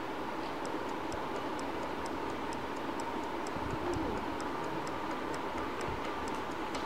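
Someone chewing a mouthful of trail mix with hazelnuts and dried berries, mouth closed: small regular crunches about three a second over a steady background hiss.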